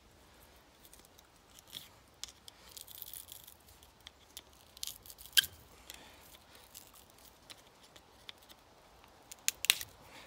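Hand tools clicking and scraping against metal while prying copper windings out of a scrap iron core, with a brief tearing scrape about three seconds in and sharp clicks around the middle and near the end.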